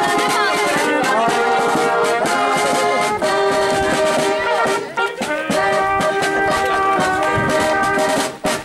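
Brass band playing a tune in sustained chords, with short breaks between phrases about three and five seconds in and again near the end.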